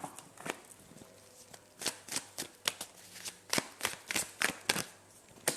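A deck of tarot cards being shuffled by hand: a run of short, crisp card taps, several a second, from about two seconds in.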